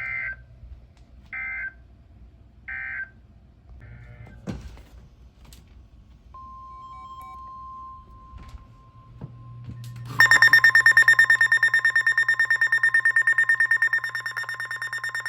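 Emergency Alert System data bursts: three short warbling digital SAME bursts about a second and a half apart, then a fainter fourth. About six seconds in, the steady 1050 Hz NOAA Weather Radio warning alarm tone starts. About ten seconds in, a much louder, harsh alarm tone takes over, pulsing rapidly and full of overtones.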